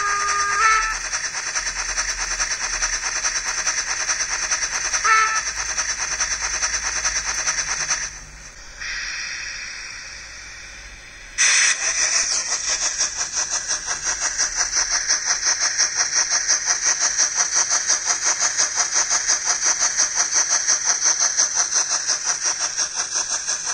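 Sound decoder of a TRIX H0 Bavarian Gt 2x4/4 Mallet steam locomotive model playing steam-engine sounds through its small speaker, with rhythmic chuffing throughout. A short whistle sounds at the start and again about five seconds in. The sound drops away about eight seconds in and comes back suddenly and loud about three seconds later as steady, fast chuffing.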